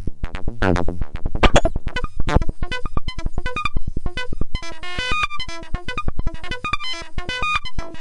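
Modular synthesizer playing a fast sequence of short electronic blips that hop between pitches over a stream of rapid clicks, with sweeping tones about half a second and a second and a half in.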